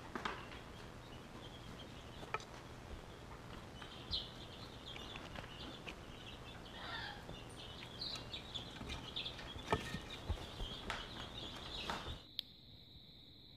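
Emu chick peeping: many short, high-pitched chirping whistles, with scattered light clicks and taps. The chirping stops abruptly near the end.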